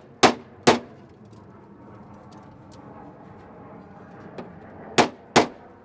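Four sharp blows on the sheet-steel hood of a car, knocking out a dent: a pair just after the start and another pair near the end, each pair about half a second apart.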